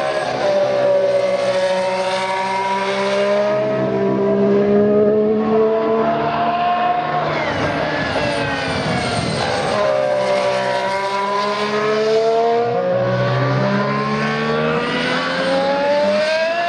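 Sauber C34's Ferrari 059/4 1.6-litre V6 turbo Formula 1 engine at racing revs, its pitch climbing steadily under acceleration. The pitch drops sharply about seven seconds in and again near thirteen seconds, then climbs again.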